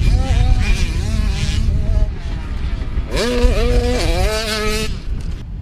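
Dirt bike engine revving hard on a motocross track. Its pitch climbs sharply about three seconds in, holds while the throttle stays open, then drops away near the end, over a low rumble.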